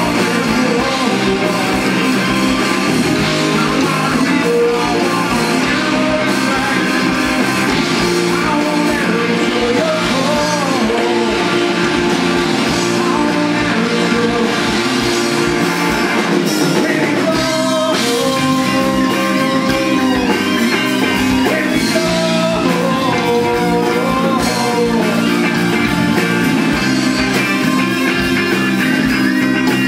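Live rock band playing loudly and continuously: electric guitars, bass guitar and drum kit, with a melodic line over them; the band moves into a new section about halfway through.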